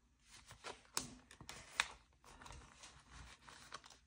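Paper bills and cash envelopes being handled: faint rustling of paper with a few sharp clicks and taps, the loudest about a second in and again just before two seconds in.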